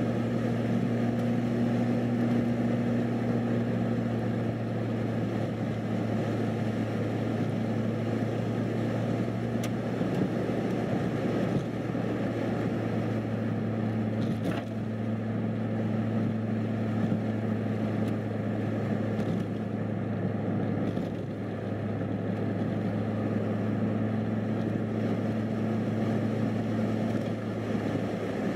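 Steady engine hum and tyre noise heard from inside a vehicle cruising along a paved highway.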